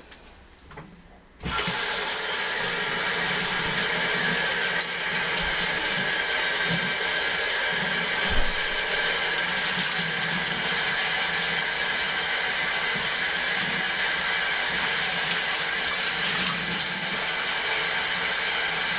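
Water running from a utility-sink faucet, turned on suddenly about a second and a half in, splashing steadily onto a grimy rag being rinsed in the basin.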